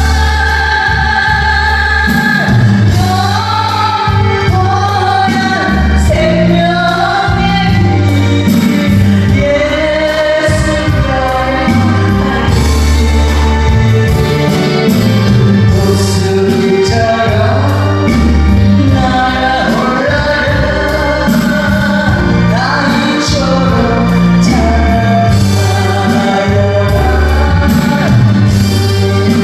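A Korean gospel praise song sung by a solo singer over instrumental accompaniment, the melody moving through held and gliding notes above a steady bass.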